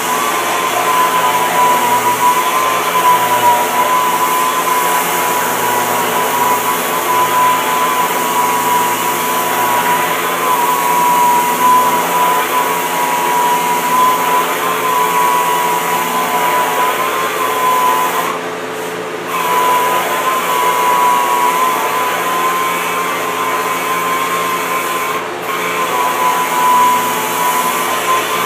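Electric angle-grinder-style sander-polisher with a foam backing pad, running at speed and sanding the surface of a surfboard: a steady high whine over the hiss of the disc on the board. The whine dips briefly twice, about two-thirds of the way in and again near the end.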